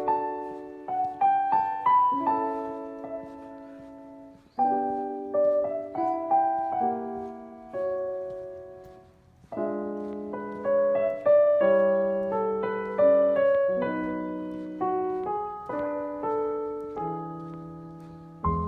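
Background music: solo piano playing slow chords and melody in phrases, the notes struck and left to ring away.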